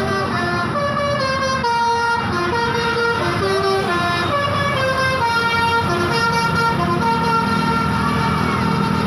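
Bus basuri telolet horn playing a melody: a run of held, horn-like notes that step up and down in pitch every half second or so, over a steady low engine rumble.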